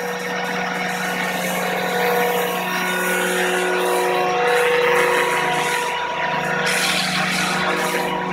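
Radio-controlled scale Eurocopter EC145 model helicopter, its motor and rotors running at flight speed as it lifts off and flies. It gives a steady whine of several held tones over rotor wash noise.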